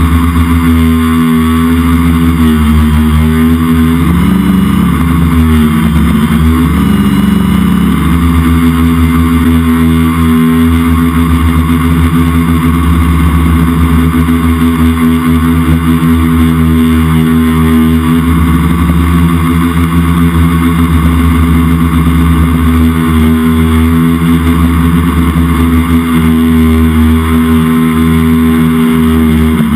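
Multicopter's electric motors and propellers running steadily close to the microphone, as heard from on board in flight. The pitch wavers for a few seconds about four to eight seconds in, then holds steady.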